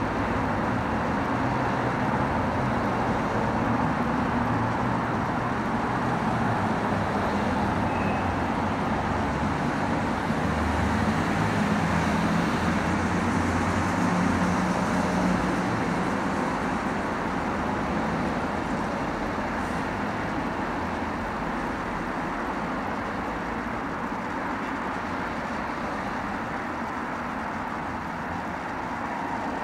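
Steady background noise: an even hiss over a low rumble that swells and fades, loudest about halfway through.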